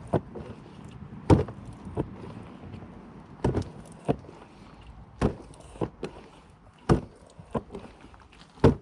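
Hand pump on a gallon jug of Slime tire sealant being worked to pump sealant into a tire through the open valve. It makes a pair of sharp knocks on each down- and up-stroke, with a pair about every second and a half.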